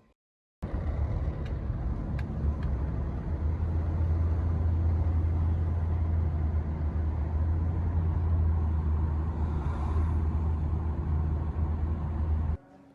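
Steady low rumble of a moving car, heard from inside the cabin: road and engine noise. It starts and cuts off abruptly.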